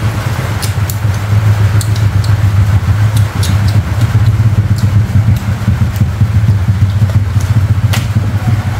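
Wind buffeting the microphone: a loud, steady, fluttering low rumble, with a few sharp clicks, the loudest near the end.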